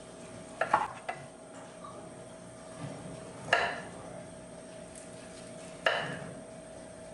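Kitchen knife slicing through a chilled stuffed fish roll and knocking onto a wooden cutting board: three main cuts a couple of seconds apart, the first with a quick double knock, over a faint steady hum.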